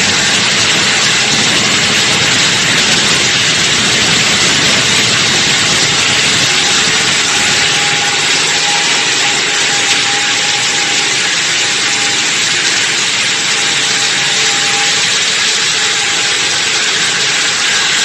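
HF 105DM high-frequency electric concrete wall saw running steadily as it cuts concrete: a continuous hissing noise with a faint steady whine underneath.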